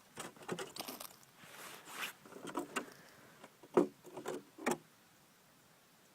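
Plastic milk jug, shot through, being picked up and handled: a string of short, irregular crinkles, rustles and knocks, the loudest about four seconds in, dying away after about five seconds.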